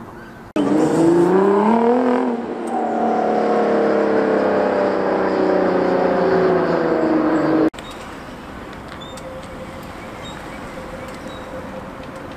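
A car engine accelerating hard, its pitch climbing for about a second and a half. After a short dip like a gear change, the engine holds a loud note that slides slowly down in pitch, then cuts off abruptly after about seven seconds. Quieter street ambience follows.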